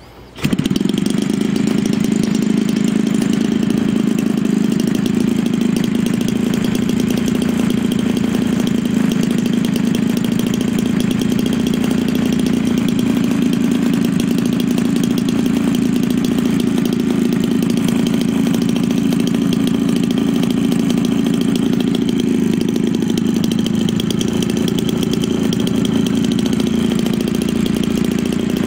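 Homelite 30cc two-stroke engine, turning an 18x6 propeller, catches about half a second in and then runs steadily at a constant speed.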